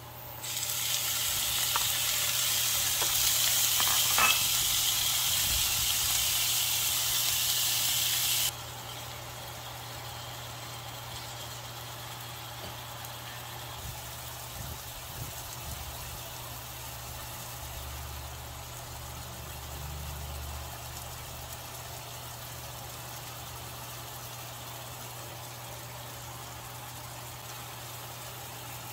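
Ground pork hitting hot oil in a pan and frying with a loud sizzle that cuts off abruptly about eight seconds in. After that the pan goes on sizzling more quietly and steadily over a low hum.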